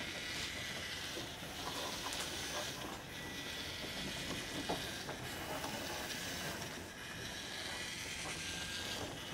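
Small hobby robot's DC gear motors running: a quiet, steady whirring hiss with a faint high whine and a few soft clicks as it drives and turns.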